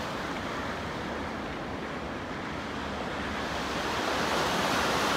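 Waves washing on the shore, a steady rushing that eases slightly midway and swells again near the end.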